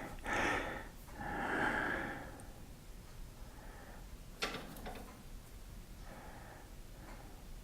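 Two soft breaths close to the microphone, then a single sharp click about four and a half seconds in, over a quiet low hum.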